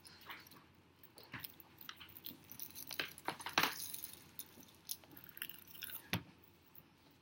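Crisp seaweed snacks being bitten and chewed close to the microphone: irregular crunchy crackles, the loudest about halfway through and another sharp one about six seconds in.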